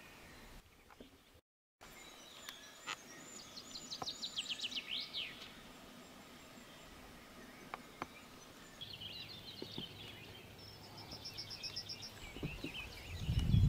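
Songbirds singing: a fast trill of descending notes ending in a flourish a few seconds in, then more chirping and a rapid repeated phrase later, over faint background hiss. Near the end a loud low rumble swells and drowns out the birds.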